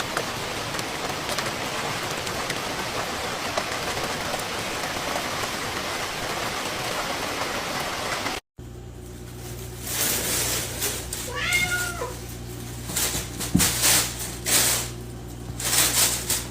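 A steady even hiss for about eight seconds, then, after a cut, a cat meows once over a low hum and several loud bursts of rustling noise.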